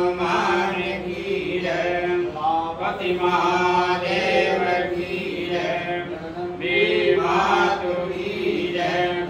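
A man's voice chanting Hindu prayers during aarti, a sung chant in long phrases with held notes.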